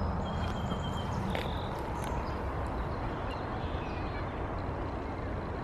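Outdoor ambience: a steady low rushing noise with a few faint, short bird chirps.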